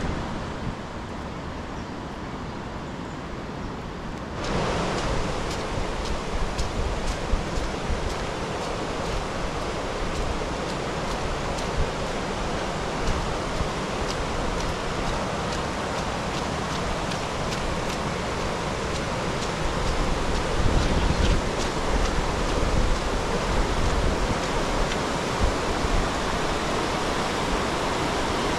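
Fast-flowing floodwater rushing across flooded ground and through a wire fence, a steady rushing wash. It gets louder about four seconds in, and a low rumble of wind on the microphone joins it around two-thirds of the way through.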